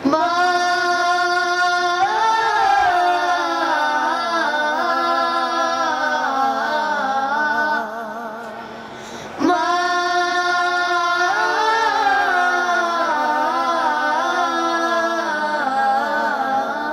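Young boys' high voices singing an Islamic song (nasheed) unaccompanied, in two long phrases with wavering, ornamented pitch and a short break about eight seconds in.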